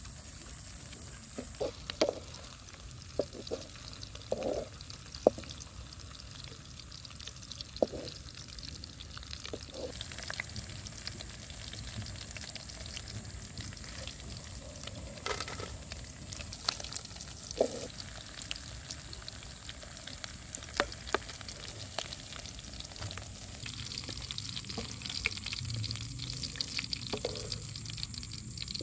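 Grasshoppers frying in a wok over a wood fire, sizzling steadily, while a wooden spatula stirs and scrapes them. Scattered sharp clicks and knocks sound throughout, most of them in the first several seconds.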